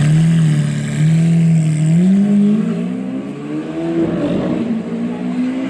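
Supercar engine pulling hard under acceleration. The note holds steady for about two seconds, then climbs, dips briefly about four seconds in, and climbs again.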